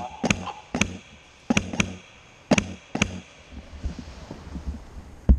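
Sharp cracks of airsoft gunfire at irregular spacing, about seven in all, some in quick pairs, the loudest near the end.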